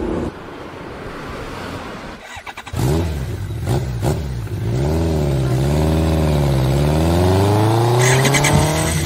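Motor vehicle engine revving. A few seconds in it starts rising and falling in pitch several times, then climbs steadily in one long rev.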